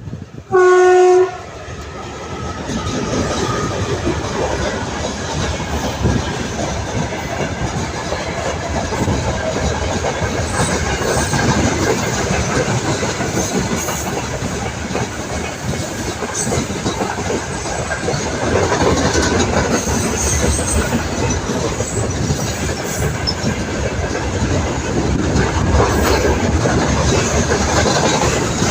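VL10U electric locomotive gives one short, loud horn blast, then the train passes close by with a steady rumble and the clickety-clack of wheels over rail joints.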